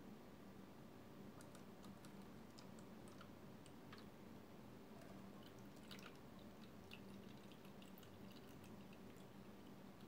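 Faint dripping and trickling of liquid being poured into plastic bottles and running through straws: small irregular ticks starting about a second in, over a low steady hum.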